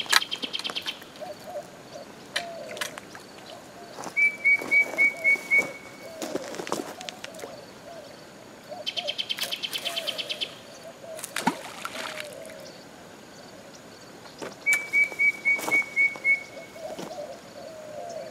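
Several wild birds calling: a run of about six short, clear notes, heard twice, a fast high trill, also twice, and lower wavering calls in between.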